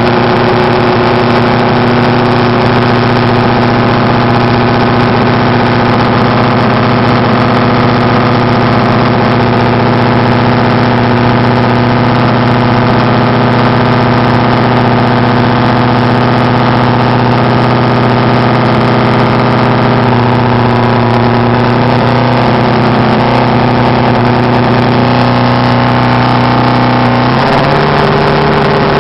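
Honda 250 motorcycle engine idling steadily, its speed rising slightly near the end.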